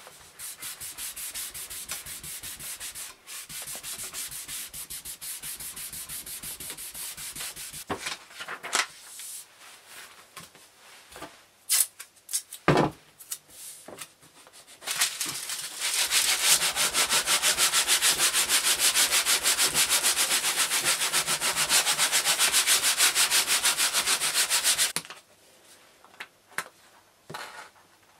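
Hand rubbing on paper laid over plywood: brisk rubbing for the first eight seconds, scattered handling knocks including a sharp knock about thirteen seconds in, then a louder steady rubbing for about ten seconds as the back of a photocopy is burnished with a baren to transfer its toner image onto the wood with thinner.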